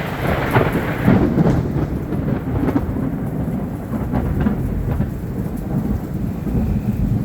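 Thunder rumbling and crackling, loudest in the first couple of seconds and rolling on, over heavy rain falling.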